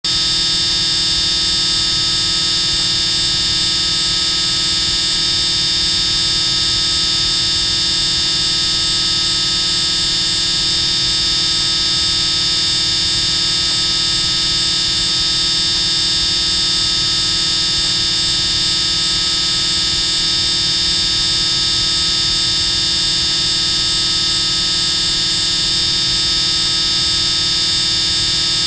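Extremely loud, steady buzzing that never changes, with a strong high-pitched hiss on top.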